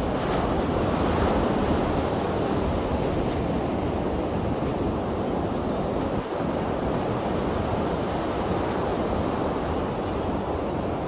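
Ocean surf: waves breaking and washing up a sandy beach in a steady rush, with some wind on the microphone.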